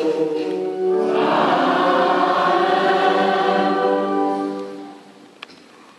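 Many voices singing together in a reverberant church, a chanted liturgical response. The singing swells about a second in, holds its notes, then fades out about five seconds in.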